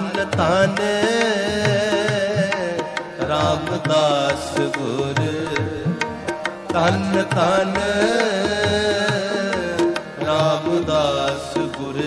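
Sikh shabad kirtan: a singer's gliding, ornamented devotional melody over steady held accompanying notes, with light drumming.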